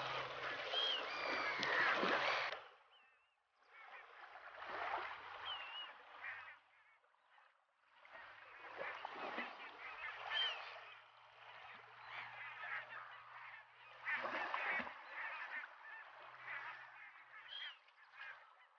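A flock of geese calling in flight, a dense busy chatter of many birds, with two short breaks.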